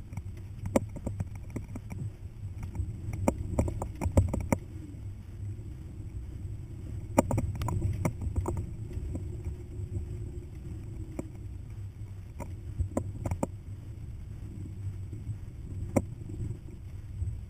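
Hummer driving slowly over a rough dirt track: a steady low rumble of engine and tyres, broken by clusters of sharp knocks and rattles as it jolts over bumps.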